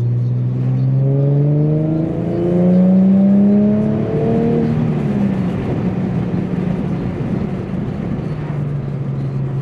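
Manual Infiniti G sedan's V6 engine pulling under acceleration, its pitch rising steadily; about four and a half seconds in the rise breaks off and the engine settles to a lower, steady note under road and tyre noise.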